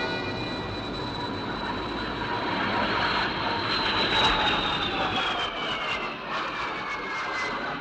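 Jet aircraft flying past: a steady rushing roar with a high whine that falls in pitch over the second half.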